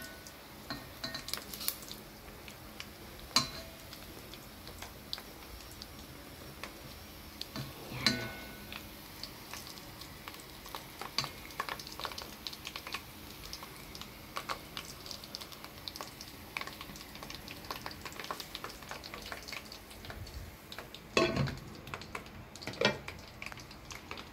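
Pork belly deep-frying in a pot of oil, crackling and popping steadily, with a few sharp clanks of a utensil or lid against the metal pot, loudest near the end.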